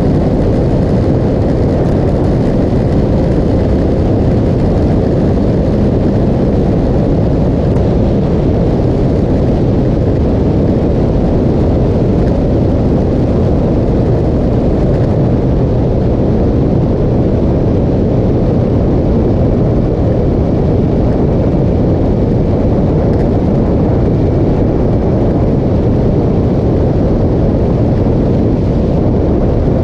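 Steady, heavy wind buffeting on the motorcycle camera's microphone at road speed, with the motorcycle's engine and tyre noise faint underneath.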